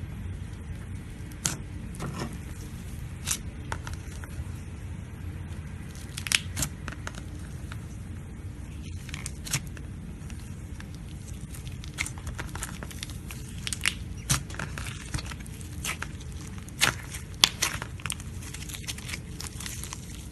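Floam slime being squeezed and stretched by hand, with irregular sticky crackles and pops over a low steady rumble.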